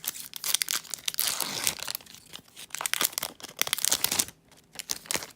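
Foil wrapper of a Detective Pikachu Pokémon TCG booster pack crinkling and tearing as it is torn open, with dense crackling for about four seconds before it quiets down.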